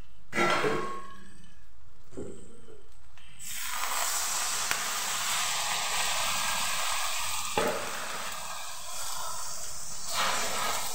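Water poured from a mug into a hot kadai of cooking jujube (ber) pickle. It hisses and sizzles as it hits the pan. The sizzle starts suddenly about three seconds in, holds steady, and dies down near the end, with a single sharp click midway.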